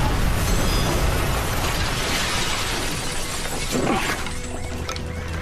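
Aftermath of an explosion: a dense rumble with glass shattering and debris crashing, slowly dying away.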